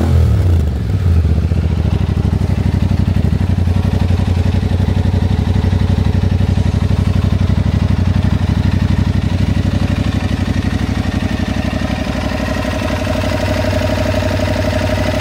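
Aprilia Tuareg 660's 659 cc parallel-twin engine idling steadily after an electric start, its revs dropping back from a throttle blip in the first second. The exhaust sound is called beautiful.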